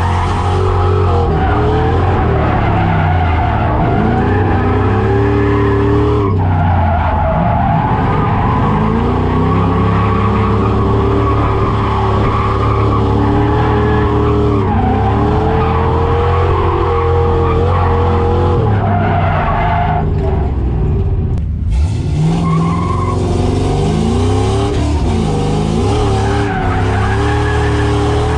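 Ford SN95 Mustang drift car's engine revving high, its pitch rising and falling as the car slides, with tyres screeching, heard from inside the cabin. The revs dip briefly about six seconds in and again around twenty-one seconds.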